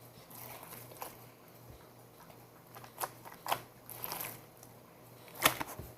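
Slime mixed with shaving cream being squeezed and kneaded by hand: irregular wet squishes and small crackling pops, the sharpest about five and a half seconds in.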